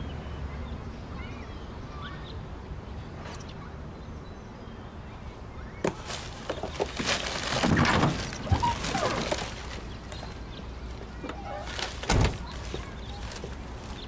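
Vintage car door being worked, with clatter and rustling for a few seconds, then slammed shut with one heavy thunk about twelve seconds in. A low steady hum runs underneath, with a few faint bird chirps.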